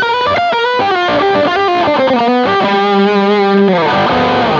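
Intro jingle of a distorted electric guitar with effects playing a fast riff of quick notes, settling on a held chord for about a second and cutting off sharply at the end.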